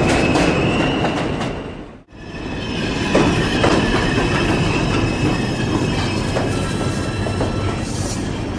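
Subway train running on the rails with steady wheel squeal, cut off abruptly about two seconds in. Then a subway train pulls into the station, wheels squealing and clattering as it slows to a stop.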